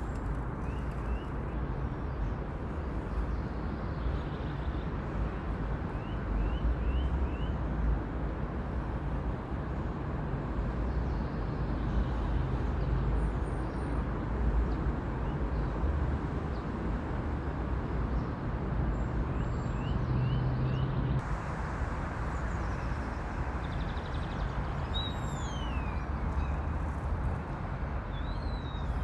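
Faint birdsong over a steady low rumble, with small groups of short rising chirps now and then and a few descending whistles near the end.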